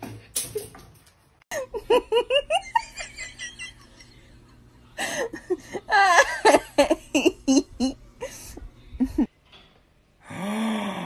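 People laughing: a run of quick laughs, then a second, louder bout of laughter a few seconds later. Near the end there is one short rising-and-falling call.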